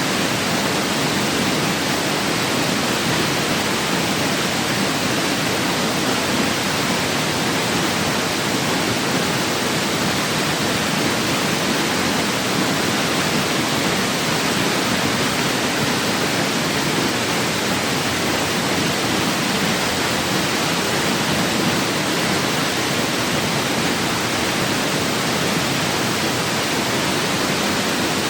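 Waterfall pouring into a pool: a loud, steady rush of water with no change.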